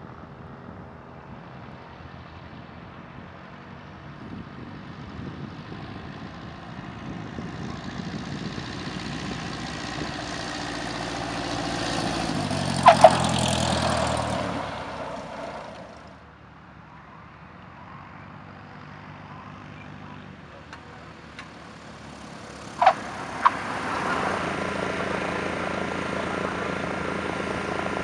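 Cessna 172's single piston engine and propeller at low power, growing louder as it lands; two short tyre chirps at touchdown about 13 s in, then the engine note drops in pitch as it passes and fades. Later, two more short chirps and then the steady engine of another light aircraft on approach.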